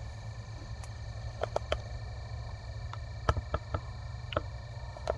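Scattered short, sharp clicks and taps, about eight of them in irregular spacing, over a steady low hum.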